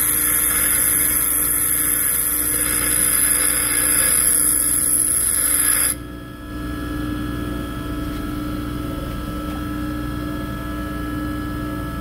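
Bench grinder wheel, spinning at 3,600 RPM, grinding the side relief angle on a lathe tool bit: a steady hiss of steel on the abrasive wheel. About halfway through, the tool is lifted off and the grinding cuts off suddenly, leaving only the grinder's motor humming as it runs free.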